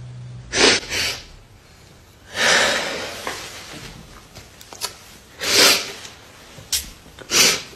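A person's breathing: several short, noisy breaths or gasps, with a longer breath about two and a half seconds in, and a few faint clicks between them.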